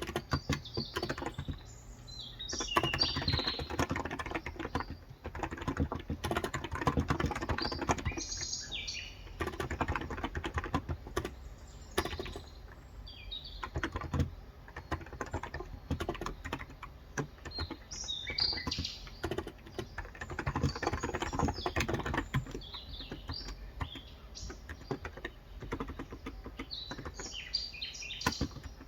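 Steady, fast typing on a Cox Endeavor electrostatic capacitive (contactless) tenkeyless keyboard with 35 g switches, keystrokes in quick continuous runs. Birds chirp in short bursts several times in the background.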